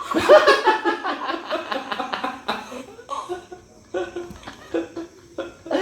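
A person snoring with a fast, rattling buzz that is likened to a Tamiya toy car motor or an F1 car. There is a long rattling stretch for the first two and a half seconds, then several short bursts.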